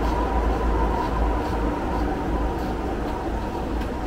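Two-car diesel multiple-unit train crossing the steel Müngsten railway bridge overhead: a steady, noisy rumble with humming tones ringing through it.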